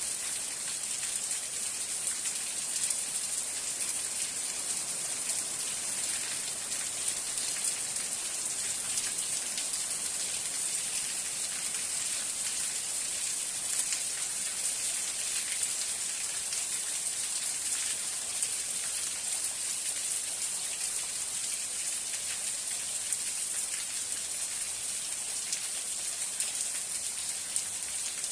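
Steady rain falling, a dense even hiss of many fine drop ticks with no change in strength.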